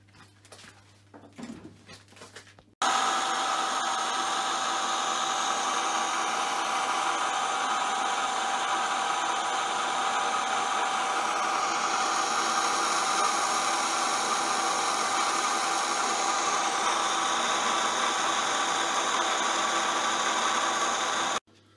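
Metal lathe running in reverse while an upside-down boring bar cuts inside the bore of a mild-steel ring: a steady machine whine with several fixed tones and hiss. It starts abruptly about three seconds in, after a faint hum, and stops abruptly just before the end.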